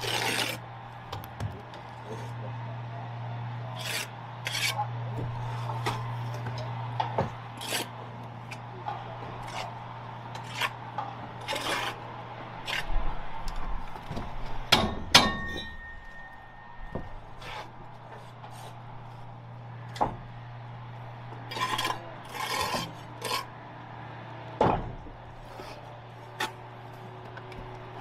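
Bricklayer's steel trowel scraping and knocking on bricks and mortar while laying a raking course up a gable: a run of short scrapes and taps, loudest about halfway through, over a steady low hum.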